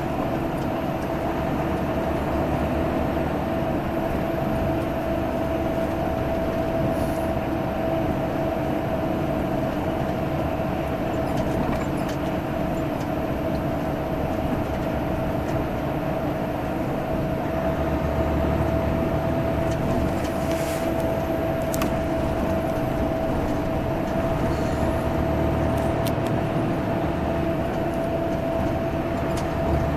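Diesel engine of a Salutaris bus running steadily at highway speed: a constant rumble with a steady whine held at one pitch throughout.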